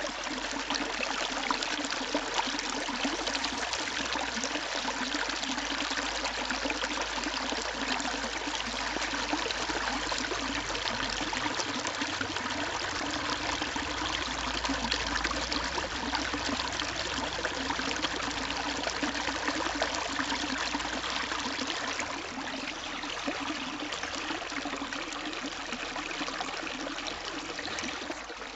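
Fountain water running steadily along a stone channel and splashing down a small step.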